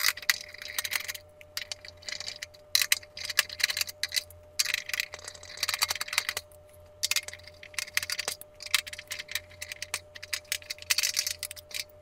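Screwdriver backing the screws out of a space heater's plastic back grille: irregular clicks, scrapes and small rattles of the tool and loose screws, over a faint steady hum.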